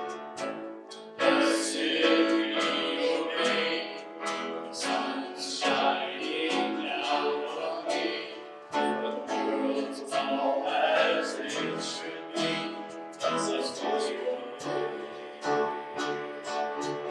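Worship music: singing voices with guitar accompaniment, strummed with a regular rhythm.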